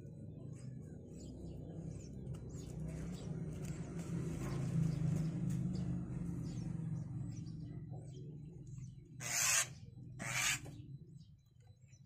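Javan mynas at a nest box: faint, short high chirps run throughout over a low steady hum, then two loud rasping calls come about a second apart near the end.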